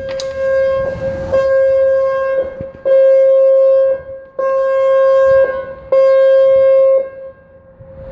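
Flood alert system warning tone sounding during a test: one steady high pitch that keeps the same note and comes in repeated loud swells of about a second each, with brief dips between.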